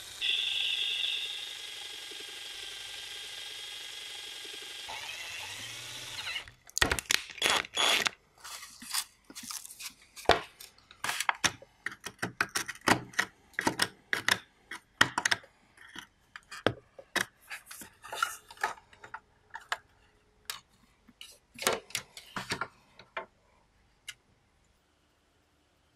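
A power drill runs steadily for about six seconds, then winds down and stops. A long run of irregular sharp clicks and scrapes follows: a pointed hand tool picking at a rusted screw and its hole in the cassette recorder's plastic case.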